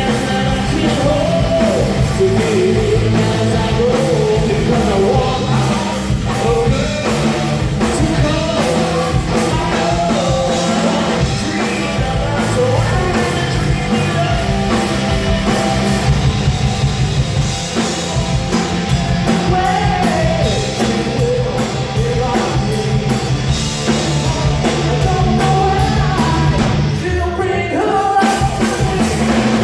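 Live punk rock band playing loudly, with a singer over electric guitars and a drum kit.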